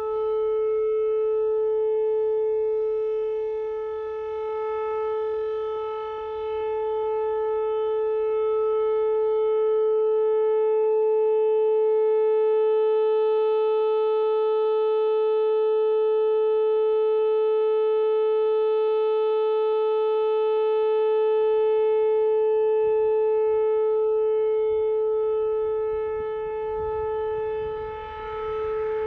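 Whelen rotating outdoor tornado warning siren sounding a steady, unwavering alert tone during its weekly test. Its loudness swells and dips slowly as the rotating horn sweeps toward and away.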